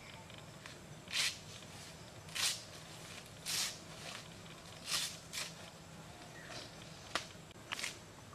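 A blade cutting and splitting fresh banana stalks: a series of short scraping swishes, roughly one a second, with a sharper click near the end.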